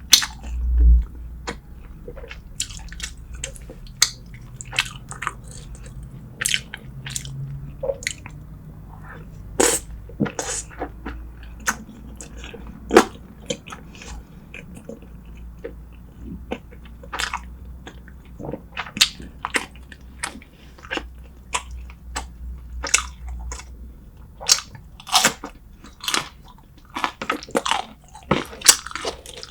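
Close-miked eating sounds: chewing and biting braised spicy seafood and short ribs, with many irregular short wet clicks and crunches. A dull thump about a second in.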